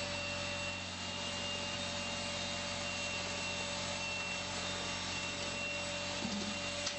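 Vacuum pump running steadily with a constant hum and whine, pulling the air out of a cured-in-place pipe liner's fibres so resin can replace it during wet-out. A faint click comes near the end.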